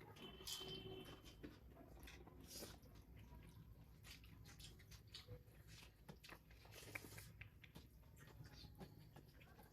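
Faint chewing of a rice-and-curry meal, with irregular soft smacks and clicks.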